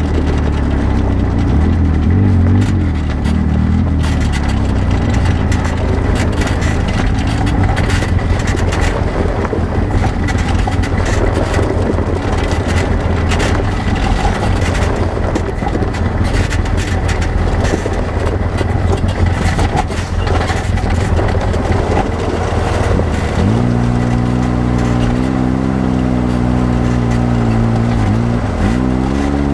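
Side-by-side UTV engine running under way on a rough dirt trail, its drone mixed with constant rattling and knocking from the bumpy ride. Toward the end the engine settles into a steadier, clearer tone, then briefly dips and picks up again.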